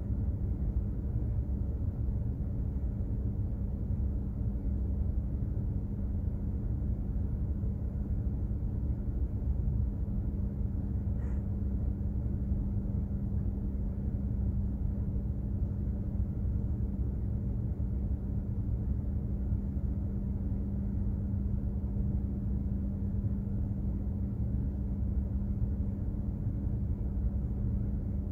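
Container ship's engines and machinery running under way: a steady low rumble with a constant hum.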